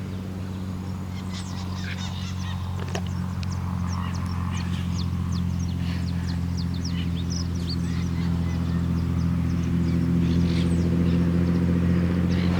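Cessna 152's four-cylinder Lycoming engine and propeller droning steadily, growing louder as the plane approaches. Many short bird chirps sound over it.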